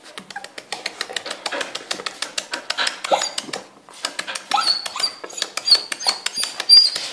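Young puppies whining and squeaking in short, high, thin cries, mostly in the second half, over many small sharp clicks throughout.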